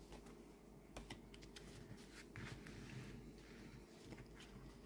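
Near silence with a few faint taps and rustles of tarot cards being handled and set down on a table mat.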